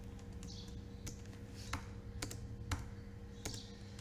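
A handful of irregular computer keyboard and mouse clicks while text is selected and deleted in a code editor, over a faint steady electrical hum.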